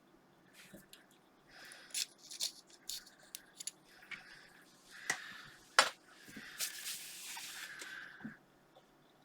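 Hand work on an old PC's CPU and heatsink: irregular scraping and rubbing with a number of sharp clicks, the loudest about six seconds in, then a longer steady rub near the end.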